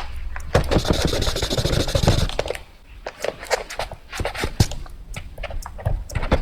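Fast drawing on paper. It starts with a dense run of quick, scratchy strokes for about two seconds, then breaks into separate short strokes and taps.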